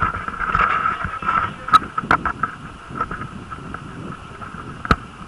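An engine running steadily, with scattered sharp knocks and clicks over it.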